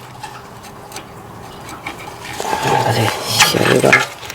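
Metal brake parts and hand tools clinking and rattling as they are handled, with a sharper metallic clink about three and a half seconds in. The first couple of seconds are quieter.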